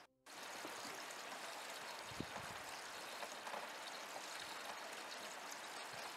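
Water pouring steadily from a hose into a stainless steel sink, a continuous splashing run with small drips and ticks, starting a moment in.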